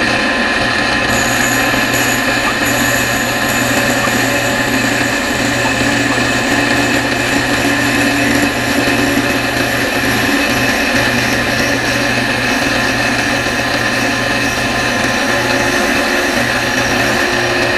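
Drill press spindle running at its top speed of 4,700 RPM, humming steadily with a high tone, as a 1/2-inch square end mill cuts a pine board.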